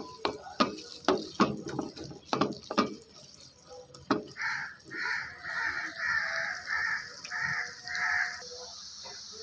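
Silicone spatula scraping across a pan as it stirs chopped onions frying in hot oil, a quick run of strokes over the first three seconds and one more about four seconds in, over a steady sizzle. From about four seconds in, a harsh animal call repeats about eight times, roughly two a second.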